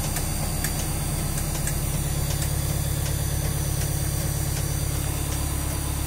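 A fire truck's diesel engine idling steadily, heard from inside the cab.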